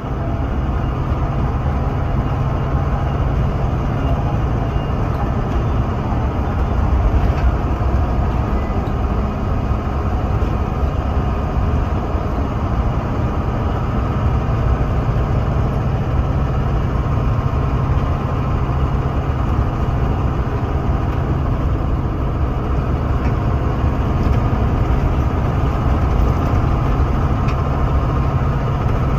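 Bus engine and road noise heard from inside the passenger cabin while the bus drives along, steady and low-pitched throughout.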